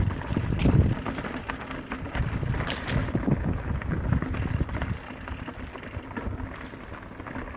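Mountain bike ridden along a dirt trail: wind gusting on the microphone, with tyre noise and the bike rattling and clicking over bumps.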